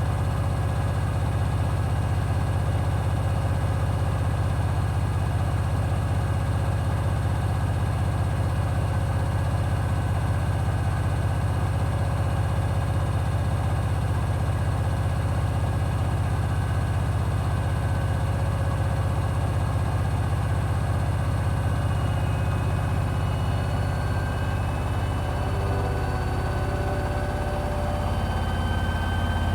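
Hoover HW411AMC front-loading washing machine on its final spin, drum and motor running steadily with a loud low hum. From about 24 seconds in, the pitch shifts and a faint whine begins to glide upward.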